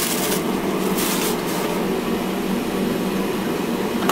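A steady low mechanical hum, with short bursts of hiss in the first second and a half.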